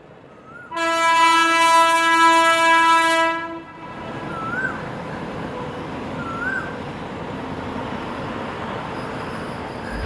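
A loud horn blast, one steady tone held for about three seconds, followed by a steady rushing rumble with a few short chirps over it.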